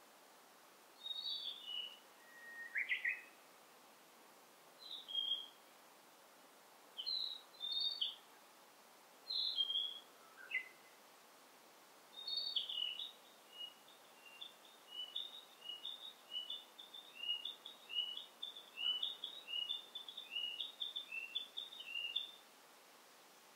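Songbirds singing: short high phrases every couple of seconds, with a lower call about three seconds in, then from about halfway a long run of quick repeated notes lasting some ten seconds, over a faint steady hiss.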